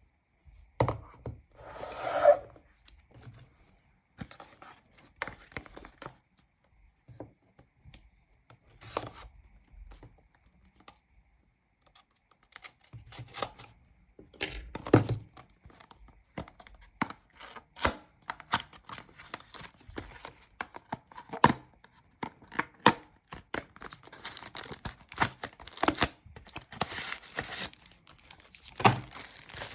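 Packaging of a new phone being opened and handled: tearing and crinkling of wrapping with scattered clicks and taps, a louder rustle about two seconds in and busier handling in the second half.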